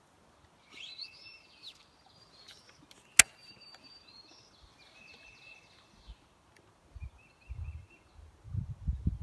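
Birds chirping and calling, in short repeated high notes. One sharp click about three seconds in, and low thumps building near the end.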